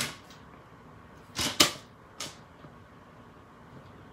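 A pen making quick tick marks on cardstock laid on a paper trimmer: a short scratch at the start, a few scratchy strokes with a sharp tap about a second and a half in, and one more brief scratch just after.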